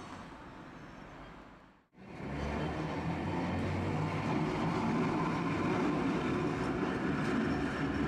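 Tosaden streetcar running along its street track, with street traffic around it. The sound fades and drops out for an instant about two seconds in, then a steady rumble holds.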